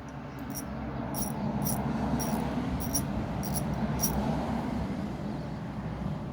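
Light metallic clicks, about two a second, as an old car battery terminal is worked loose from its post with hand tools, over a low rushing noise that swells and then fades.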